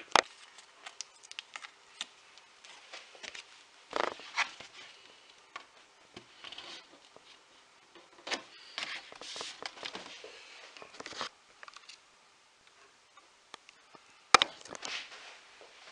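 Stiff cardstock being handled and folded by hand: irregular clicks, taps and papery rustles in a few short clusters, with a sharp tap near the end.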